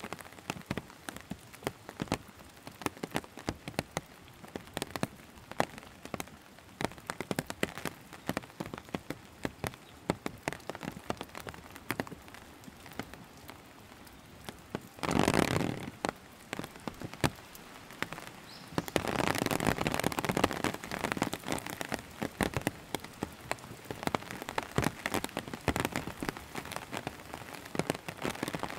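Steady rain falling, with many sharp, close drop hits. About halfway through a louder rush lasts about a second, and a few seconds later the rain sound swells louder for a couple of seconds.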